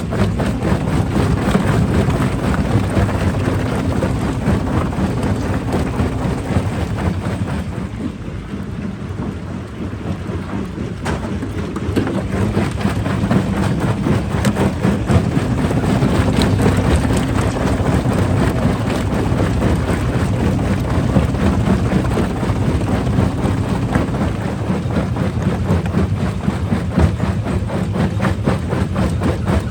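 Heavy rock-crushing machinery running: a steady low engine drone under constant crunching and clattering of rock, easing a little about eight seconds in.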